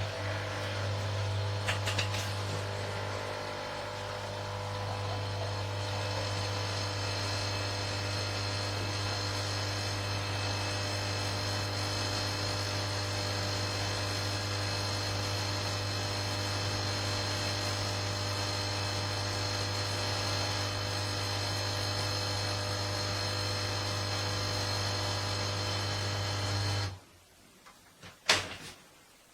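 Dolce Gusto Piccolo XS pod coffee machine's pump humming steadily as it pushes water through a pod, then cutting off suddenly near the end, followed by a couple of sharp clicks.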